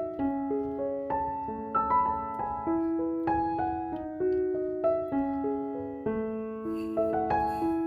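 Background music: a gentle piano melody of single notes struck one after another, each left to ring and fade.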